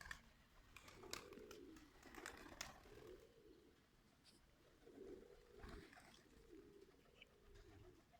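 Birmingham roller pigeons cooing softly, one low coo after another, mixed with a few brief clicks and rustles.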